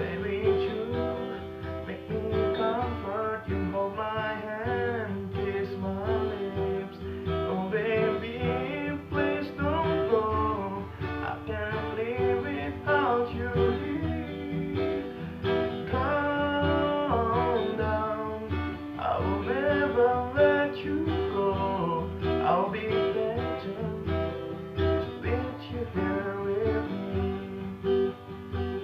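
Guitar music with a sung melody over steady sustained low notes.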